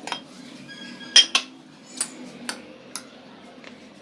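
A spoon clinking against a microwave-safe bowl as cooked rice is served out: about six sharp clinks, the loudest just over a second in.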